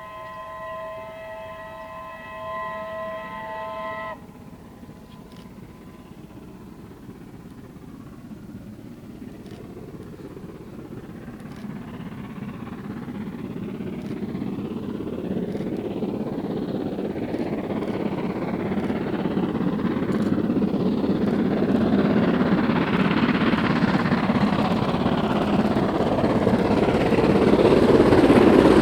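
Steam locomotive 70000 Britannia sounding its whistle, a steady chord-like tone that cuts off sharply about four seconds in. Then the train's approach, a rushing, rumbling noise that grows steadily louder to the end.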